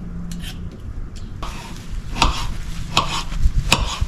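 A spoon stirring chopped fruit in water in a container, with several sharp clinks in the second half.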